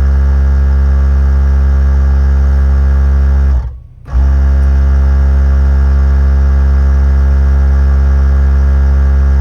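Toyota 4Runner Trailhunter's built-in onboard air compressor running steadily with a deep, even hum while inflating a car tyre to a set 34 psi. A bit over three and a half seconds in it winds down and stops for under half a second, then starts again and runs on.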